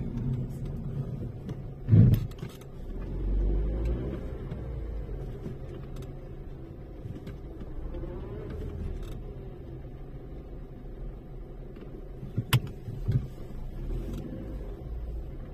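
Car on the move: a steady low rumble, with a sharp thump about two seconds in and two more close together near the end.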